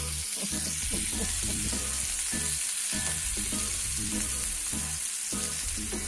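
Steady sizzle of pre-cooked prawn and sweet pepper kebabs frying in oil in a ridged grill pan, being heated through.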